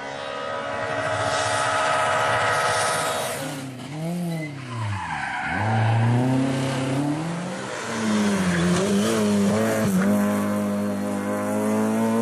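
Rally car engine at high revs as it approaches, then lifting off and blipping through quick downshifts for a corner. It then accelerates hard away, revs rising and falling through the gear changes.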